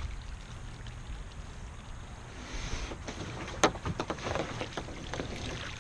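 Kayak under way on a river: steady water noise from paddling, with a few sharp clicks and short knocks a little past the middle.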